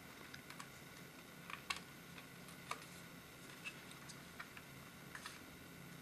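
Handling noise of a 2.5-inch SSD and its rubber shock-absorber frame being fitted together: faint, scattered light clicks and taps, a little stronger about one and a half seconds in, over quiet room tone.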